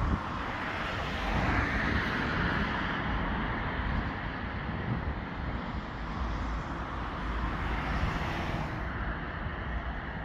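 Road traffic going by, a steady hiss of tyres that swells twice, over a low wind rumble on the microphone.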